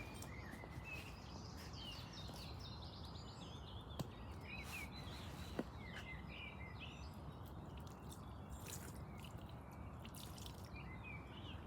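Small birds chirping and singing in short, quick phrases over a steady low outdoor background hiss, with a couple of sharp clicks about four and five and a half seconds in.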